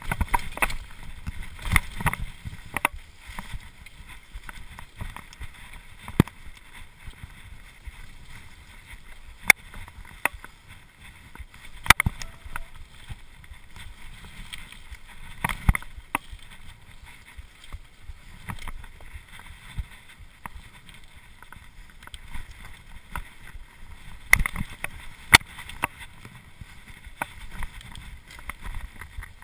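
Cube LTD Pro hardtail mountain bike ridden fast over rough dirt singletrack: a steady rush of tyres on the dirt and air past the microphone, broken by frequent sharp knocks and rattles from the bike as it hits bumps and roots.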